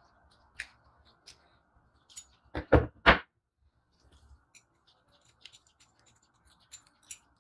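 Small metal parts of a vintage balance scale clicking and knocking as they are handled and fitted, with three sharper, louder knocks close together about two and a half to three seconds in.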